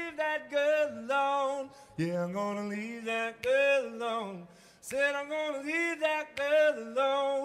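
A man's voice singing wordless, held phrases a cappella with vibrato, built up with looped vocal layers. From about two seconds in, a lower sung line sounds beneath the higher one for a couple of seconds.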